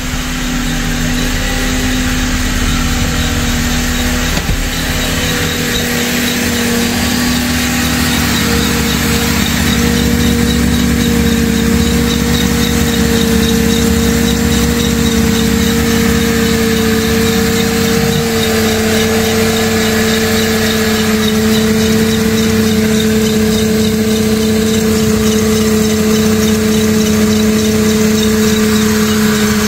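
Mercedes-Benz M271 Kompressor supercharged four-cylinder engine idling steadily just after its first start following a timing chain replacement. A steady whine runs over the engine sound, and the idle pitch drops slightly about eighteen seconds in.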